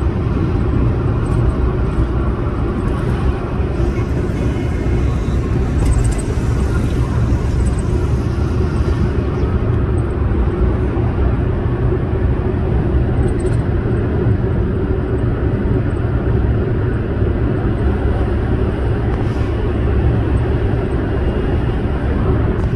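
Steady rumble of a moving car heard from inside: road, engine and wind noise, unchanging throughout.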